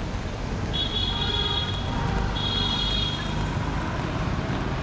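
Vehicle horn honking twice, a long blast of about a second and a half, then a shorter one, over a steady low rumble of street traffic.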